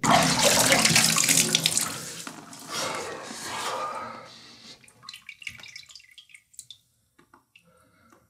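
Bathwater splashing and streaming as a man in a bathtub splashes it over himself: a sudden loud splash, two more washes of water a few seconds later, then dwindling to scattered drips.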